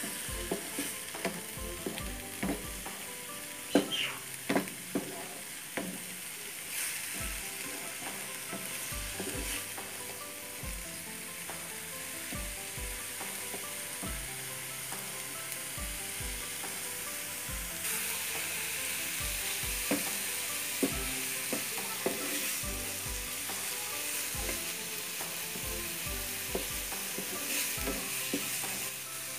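Blended onion with chopped ginger and garlic sizzling steadily in oil in a nonstick frying pan as it is sautéed toward golden. A wooden spatula scrapes and taps against the pan while stirring, most often in the first few seconds.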